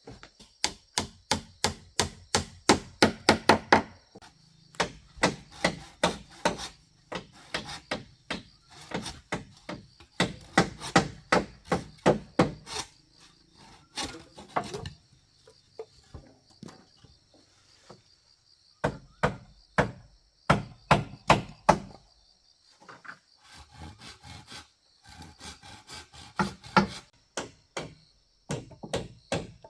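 Hand tool striking wood in quick runs of blows, several a second, with short pauses between runs. Insects trill steadily behind.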